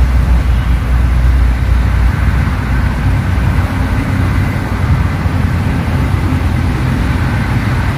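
Loud, steady low rumble with a faint hiss over it, and no distinct splashes or clicks.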